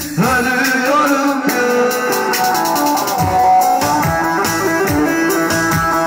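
Live amplified Kurdish folk music: a man singing into a microphone over a bağlama (long-necked saz), with a steady drum-machine beat coming in from about three seconds in.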